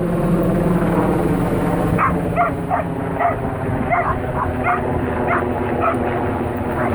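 Small dogs yapping in quick short barks, about two to three a second, starting about two seconds in, over a steady low rumble.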